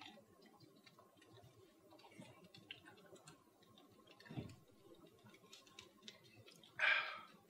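Faint swallowing and small clicks as people chug a drink from plastic cups, with a short low knock about halfway and a brief breathy exhale near the end.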